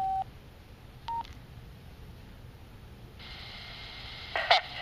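Wouxun dual-band handheld ham radio beeping as its keypad buttons are pressed: a short beep at the start and another, higher one about a second later. From about three seconds in, the radio's speaker opens with a hiss, and near the end a few short bursts of received sound come through it.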